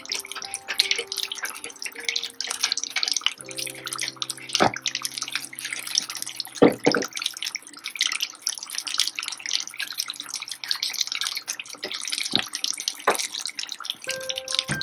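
Gram-flour-battered fish pieces deep-frying in hot oil: a dense, steady sizzle and crackle, with a few louder pops about five and seven seconds in. Soft background music with held notes plays underneath.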